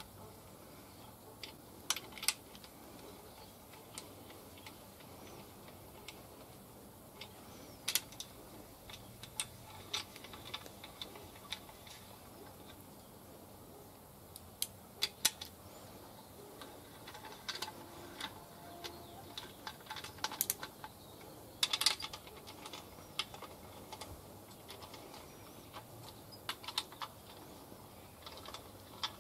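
Scattered light metallic clicks and taps from main bearing caps being seated on the crankshaft of a 308 V8 block and their cap bolts being started by hand, not yet torqued.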